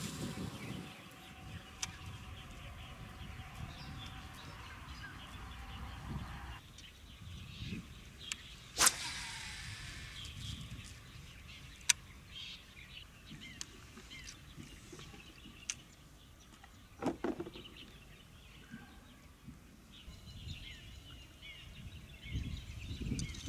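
Outdoor ambience with faint chirps and a few sharp clicks. A steady rushing noise stops abruptly about six and a half seconds in.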